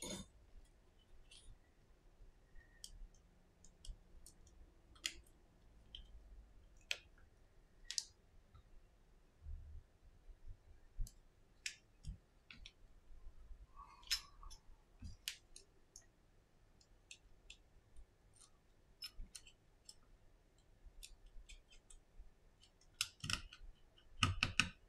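Quiet, scattered light clicks and taps from hands handling an iPhone 6s's metal and glass parts during reassembly, with a louder run of clicks near the end.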